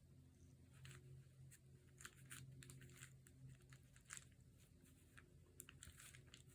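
Faint crinkling and rustling of fabric and paper being smoothed and aligned by hand on a glued notebook cover, in many small irregular crackles starting about a second in.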